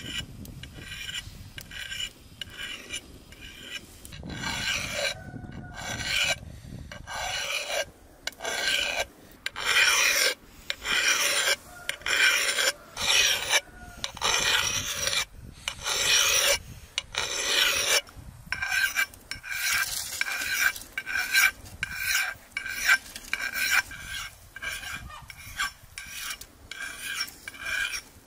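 Flat metal file drawn in repeated strokes along an axe blade's edge, sharpening it: rasping strokes with a metallic ring. The strokes are longer and slower at first, then quicker, about two a second, in the second half.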